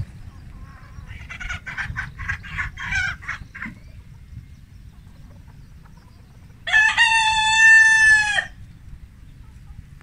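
Chickens clucking in a quick run of short calls, about five a second, then a rooster crowing once about seven seconds in, a long, loud, held call that drops off at its end.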